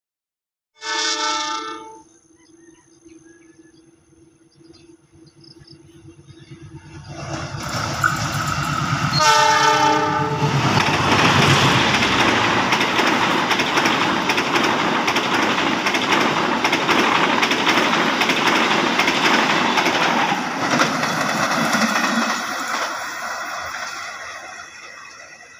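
Passenger train sounding a short horn blast about a second in and another about nine seconds in as it nears. Then comes the loud, steady noise of the carriages passing on the rails, fading away over the last few seconds as the train recedes.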